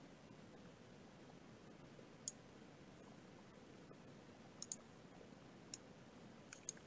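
Computer mouse clicks, about six in all: one on its own, then a quick pair, then three more spaced out, over near-silent room tone.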